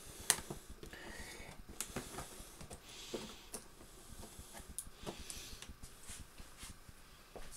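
Faint, scattered taps and scratches of fingers picking at the top flap of a cardboard box.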